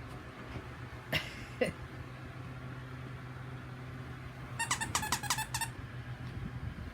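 A squeaky dog toy, the kind said to sound like a monkey, squeezed in a rapid run of squeaks about five seconds in. About a second in there is a short sharp sound and a brief falling squeal.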